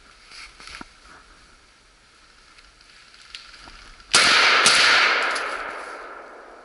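A single rifle shot fired close by, about four seconds in, its report echoing away through the forest over roughly two seconds.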